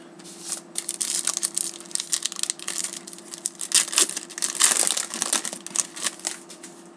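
Crinkling and crumpling of a foil trading-card pack wrapper being handled. The dense crackle begins just after the start, peaks about four to five seconds in and dies away near the end.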